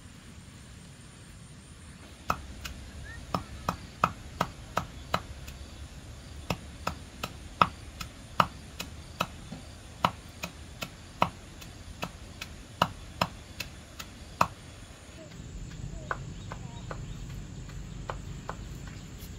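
Knife chopping leafy greens on a small wooden cutting board: sharp, irregular strikes at about two a second, stopping about three-quarters of the way through, with a few fainter chops near the end.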